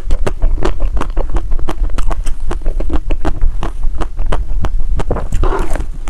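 Close-miked chewing of crispy, crunchy ice cream: a dense, irregular run of sharp crunches, several a second, over a steady low rumble.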